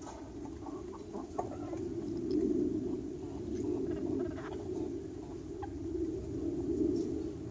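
A flock of chickens clucking, with short scattered calls from several birds over a steady low background hum.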